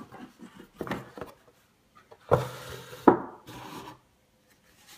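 Rigid cardboard gift box lid being pulled off its base, a dry rubbing scrape of card on card, with two sharp knocks less than a second apart a little over two seconds in.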